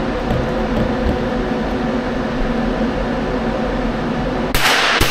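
A steady mechanical hum, then near the end a submachine gun fires two shots about half a second apart, each a sharp crack that rings on in the enclosed range. The gun then stops firing; a moment later it is called jammed again.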